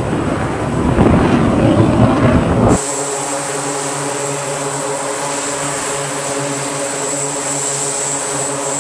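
A loud rumbling rush of wind-like noise, cut off about three seconds in by the steady drone of an E-2 Hawkeye's turboprop engines running at power on the carrier deck, a propeller hum with a thin high whine over it.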